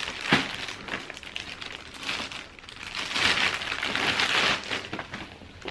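Plastic packaging crinkling as hands open a clear plastic bag and pull a garment out of it, in uneven bursts that are loudest from about three to four and a half seconds in.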